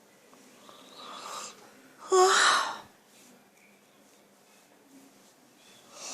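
A sleeping person snoring: a softer breath about a second in, then one loud snore about two seconds in lasting under a second, and the next breath starting near the end.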